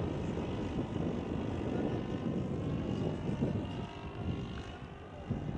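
Model airplane's 32 cc four-stroke gasoline engine and propeller droning steadily in flight, growing fainter near the end.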